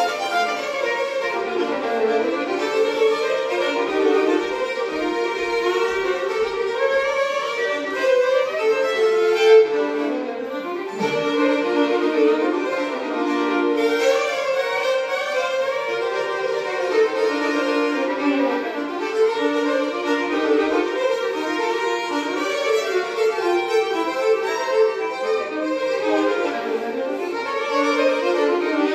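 Two fiddles playing a tune together as a duet, with a steady flow of bowed notes.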